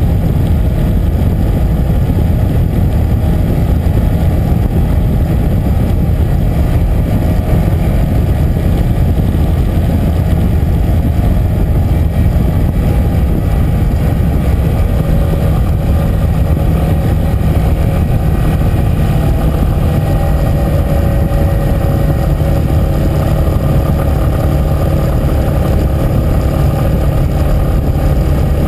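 Yamaha Fazer 250's single-cylinder four-stroke engine running steadily while the motorcycle cruises on the open road.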